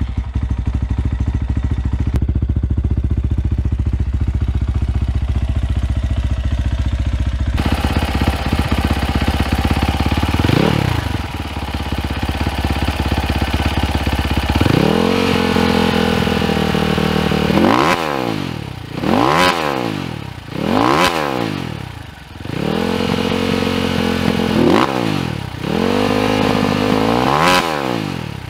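SSR Motorsports SR300 dirt bike's single-cylinder engine, breathing through its stock exhaust, idling steadily just after a cold start. It is blipped once about ten seconds in. From about halfway it is revved in a series of quick throttle blips, each a sharp rise and fall in pitch, dropping back to idle between them.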